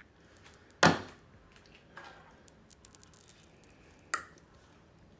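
Handling of skincare containers: two sharp clicks or knocks, about a second in and near the end, with a few faint ticks between them.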